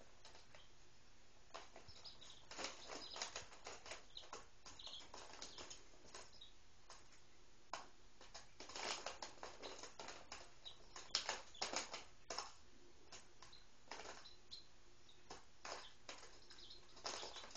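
Three-day-old Speckled Sussex and Rhode Island Red chicks moving and pecking on newspaper: faint, irregular rustling and light tapping in short clusters, with a couple of soft high peeps.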